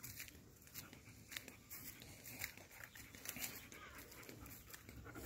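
Faint crunching and rustling of footsteps in dry grass on a dirt trail. Near the end a German Shepherd's quick, even panting begins.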